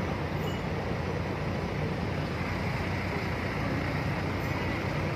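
Truck-mounted crane's engine running steadily with a low drone while the crane hoists a casualty up from below.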